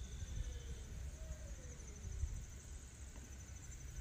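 Insects trilling steadily in a high, finely pulsing chorus, over an uneven low rumble of wind on the microphone.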